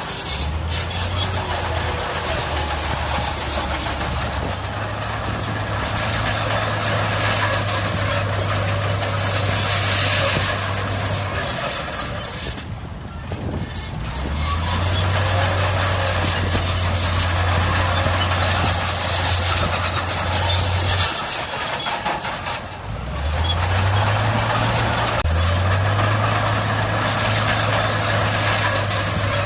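Heavy diesel earthmoving machines working, a bulldozer and dump trucks, with a steady low engine hum that steps up and down in pitch as the throttle changes. The machine noise eases off briefly twice, about a third and three quarters of the way through, then picks up again.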